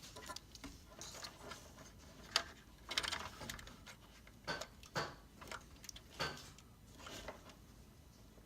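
Scattered light clicks and faint rubbing from a DDR4 memory stick being handled, about half a dozen small taps spread a second or so apart.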